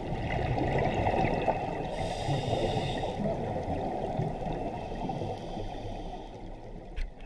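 Underwater sound of scuba breathing: regulator exhaust bubbles gurgling and rushing in the water, slowly fading near the end.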